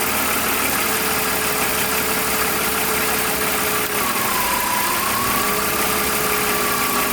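BMW E46's M54 straight-six idling, with a steady high whistle from the alternator whose pitch dips briefly about four seconds in. The whistle comes from the alternator's electrical side, not its bearing: the owner traces it to a failing rectifier diode pack.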